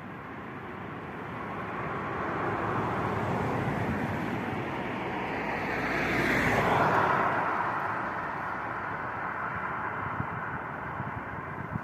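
A road vehicle passing by: steady noise that swells to its loudest a little over halfway through, then fades back.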